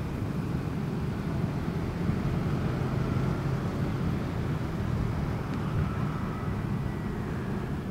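Steady low rumble of a moving vehicle in traffic: engine and road noise, unchanging throughout.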